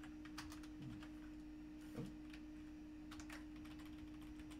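Computer keyboard being typed on: a quick, irregular run of faint key clicks, with one louder knock about two seconds in, over a steady low electrical hum.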